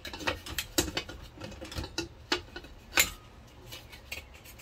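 Metal cassette-compartment lid of a top-loading VCR being fitted and lifted off again: an irregular run of sharp clicks and clacks from the lid and the cassette mechanism, the loudest about three seconds in.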